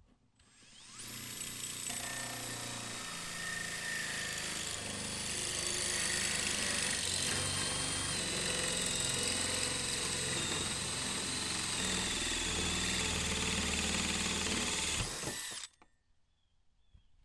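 Cordless Makita drill spinning a 2 1/8-inch bi-metal hole saw through the van's steel body panel: a steady grinding, screeching cut with high whining tones over it. It starts about a second in and stops suddenly about a second and a half before the end, once the hole is cut through.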